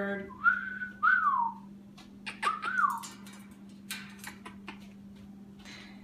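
Congo African grey parrot whistling: three quick rising-and-falling whistles in the first three seconds, followed by a few soft clicks over a steady low hum.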